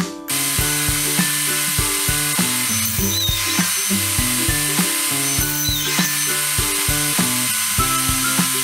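Upbeat background music with a steady beat, over a Festool table saw that starts up just after the start and then runs steadily while cutting a strip of OSB board.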